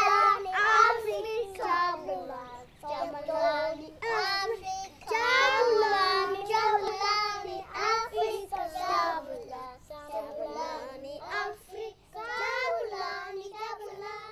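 A young child singing in a high voice, in short phrases with brief pauses between them.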